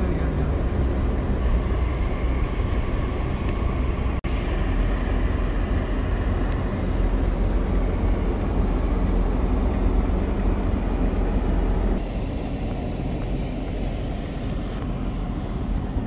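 Mercedes-Benz camper van driving on a snow-covered road, heard from inside the cab: a steady low rumble of engine and road noise. It breaks off for an instant about four seconds in and runs a little quieter over the last few seconds.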